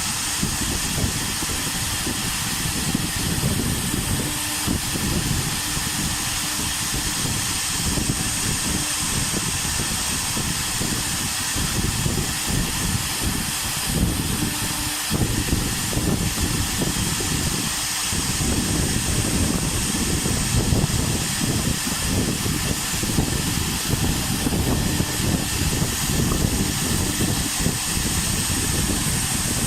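Air-cooled spindle of a wood CNC router running steadily while carving MDF: a constant high whine over a rough, fluctuating cutting noise.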